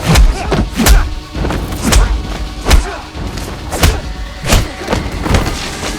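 Punch and kick impact sound effects in a fight scene: a quick run of heavy thuds and whacks, about two a second, over action music.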